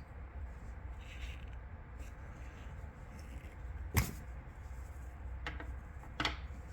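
Handling noises from an unboxing: a faint rustle, then one sharp click about four seconds in and two lighter clicks near the end, over a low steady rumble.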